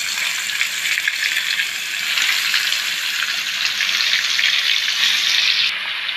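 Fish pieces frying in hot oil in a pan: a dense, steady sizzle that grows louder about two seconds in, its upper hiss dropping away suddenly near the end.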